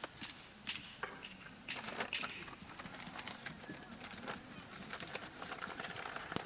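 Wood campfire crackling: irregular sharp pops and snaps.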